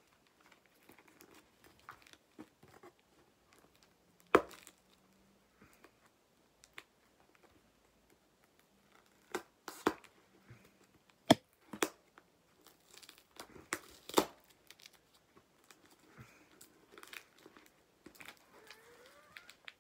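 Cardboard packaging being handled and torn open: quiet rustling and crinkling, broken by several sharp snaps and knocks, the loudest about four seconds in and a cluster between about nine and fourteen seconds.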